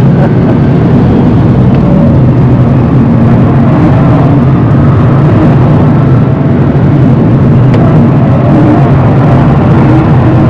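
Rimac Nevera electric hypercar driving at high speed, heard from inside the cabin: a loud, steady rumble of road and wind noise with a faint whine that drifts in pitch.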